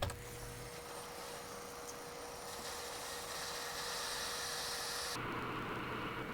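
Hot-air rework station blowing: a steady airy hiss with a faint steady whine. The hiss grows stronger about two and a half seconds in and changes abruptly about five seconds in.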